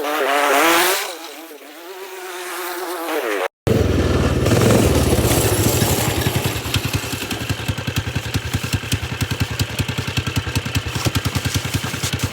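Small 120 mini snowmobile engine with a high, buzzy whine. For the first few seconds its pitch wavers up and down as the throttle is worked, loudest about a second in. After a short cut it runs steadily close by with an even low pulsing, like idling.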